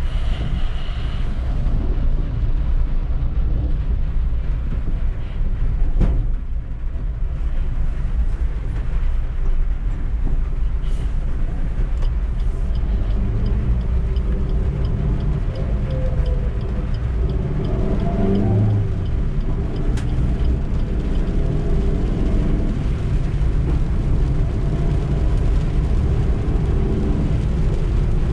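Suzuki Eeco's 1.2-litre four-cylinder engine running on the move, with continuous low road rumble. The engine note rises and shifts for several seconds past the middle. A single sharp knock comes about six seconds in.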